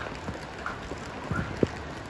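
Steady rain hiss with a few short knocks, the loudest about one and a half seconds in, and two brief high chirps.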